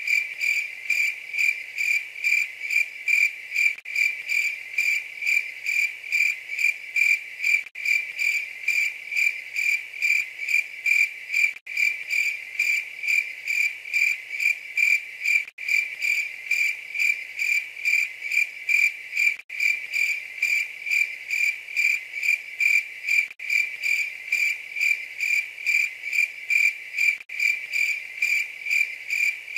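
Cricket chirping in a steady, even rhythm of about two to three chirps a second on one high pitch, with a brief dropout about every four seconds, as in a looped cricket recording.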